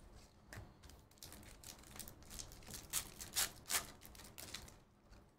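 Trading cards being flipped and slid one past another in the hand: a run of light, irregular clicks and swishes, a few a second, loudest about three to four seconds in.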